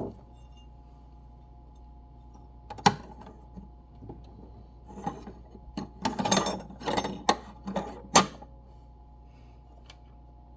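Handling clicks and clatter as a sewing machine's face plate is fitted back on: a sharp click about three seconds in, a run of rattling knocks around six to seven seconds, and another sharp click a little after eight seconds, over a faint steady hum.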